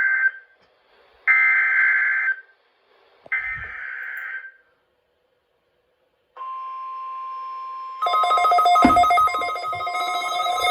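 NOAA Weather Radio Emergency Alert System (SAME) header: three screeching data bursts of about a second each, sending the coded alert for the required weekly test. After a short gap a steady single alert tone begins, and about 8 s in a louder ringing mix of tones joins it.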